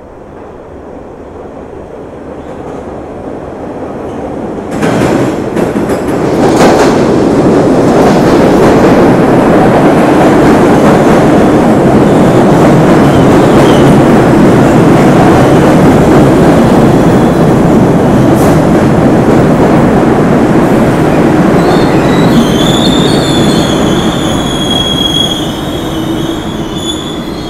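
A train passes close by. Its noise builds over the first several seconds into a steady loud rumble of wheels on rails. About two-thirds of the way through, high wheel squeal rises over it, and the sound begins to fade near the end.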